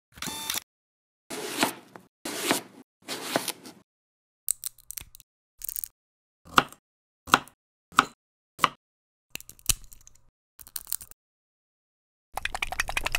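Stop-motion cooking sound effects in short separate bursts with dead silence between: a few cutting and crunching sounds as the tomato is sliced, then a run of single sharp taps and plops as slices are set on the burger, and near the end a fast spluttering rattle as a sauce bottle is squeezed.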